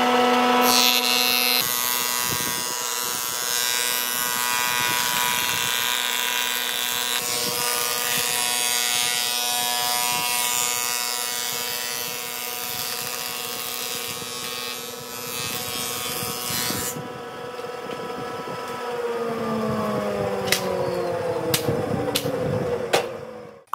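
Wood planer running, its cutterhead planing boards with a loud dense cutting noise over a steady machine hum. About three-quarters of the way through the cutting stops and the motor winds down with a falling hum, with a few sharp clatters of boards near the end.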